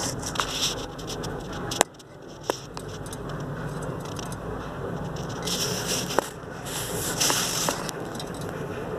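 Budgies moving about their cage: scraping and rustling with scattered sharp clicks, and two bursts of hissy rustling around the middle.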